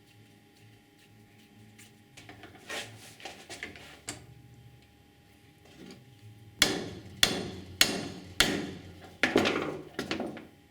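Hammer blows in a workshop: a few soft knocks and clatters, then about six sharp strikes roughly half a second apart in the second half.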